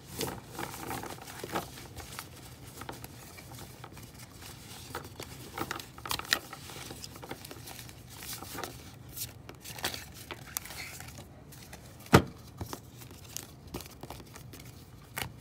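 Trading cards and their packaging being handled and shuffled around on a tabletop: scattered light clicks and rustles, with one sharp knock about twelve seconds in.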